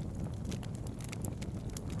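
Campfire of burning firewood crackling: scattered small snaps and pops over a low steady rumble.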